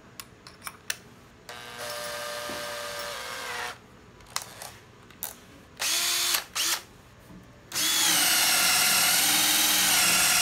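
Second-hand cordless drill being test-run. After a few clicks it runs for about two seconds, gives two quick trigger blips, then runs steadily for the last few seconds with its motor whine wavering as the speed changes. It runs very smoothly.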